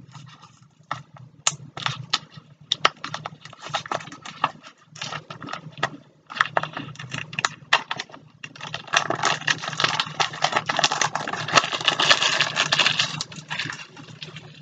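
Cellophane shrink-wrap crackling as it is peeled off a card deck's box. Scattered sharp crackles give way, past the middle, to several seconds of dense crinkling as the plastic is crumpled.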